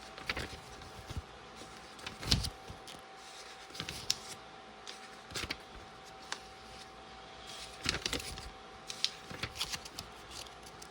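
Pages of a paper LEGO instruction booklet being flipped quickly: a series of short, irregular papery flicks and rustles.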